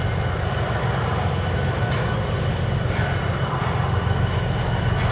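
Steady low engine drone, as from a moored fishing boat's engine or generator running at the quay, with a faint high whine over it and a brief click about two seconds in.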